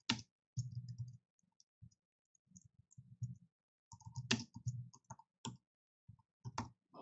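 Typing on a computer keyboard: irregular keystrokes in short runs, with brief pauses between them.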